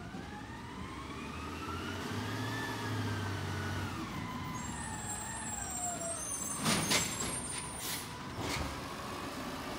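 Garbage truck driving up the street: a whine rises as it speeds up, then falls as it slows. Short loud hisses follow about seven seconds in, typical of its air brakes as it stops.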